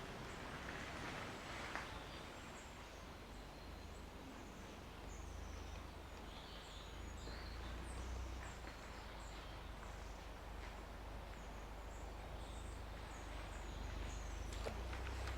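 Small birds chirping again and again in short high calls over a steady background hiss, with a low rumble that grows stronger about five seconds in.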